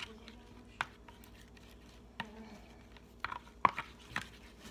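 Plastic spoon stirring a glue and shaving-cream slime mixture on a plate, clicking and scraping against the plate in irregular taps, with a cluster of sharper clicks a little past the middle.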